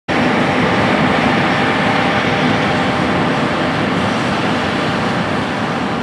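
John Deere S790 combine running steadily while harvesting soybeans and unloading on the go: a loud, even mechanical drone from its engine and threshing machinery.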